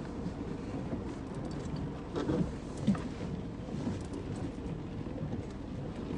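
Steady rain with a low rumbling noise underneath, and scattered light ticks. A couple of brief louder sounds come about two to three seconds in.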